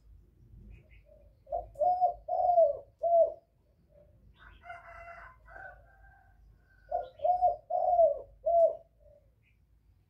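Male spotted dove cooing: two phrases of four or five low, slightly falling coos, about five seconds apart.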